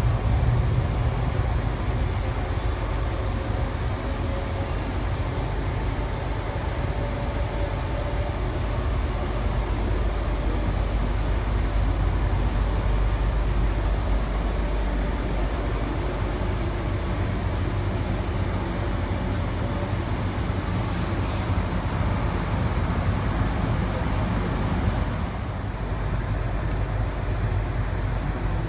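Inside a Tangara electric train at the doorway: steady running rumble of the train travelling, easing a little near the end as it comes into the platform.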